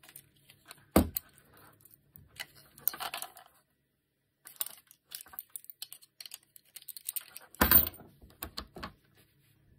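Orange 3D-printed plastic robot-arm base parts being handled: scattered light clicks and rattles, a sharp knock about a second in, and the loudest knock with a short clatter near the end as the assembly is set down on the wooden bench.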